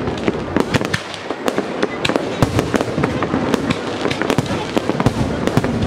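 Fireworks display: a dense, irregular barrage of sharp bangs from aerial shells bursting overhead, over a continuous crackle.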